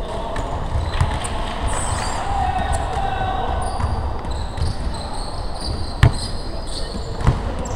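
Basketball game on a hardwood gym floor: the ball bouncing and players running, with a few sharp thuds, the loudest about six seconds in.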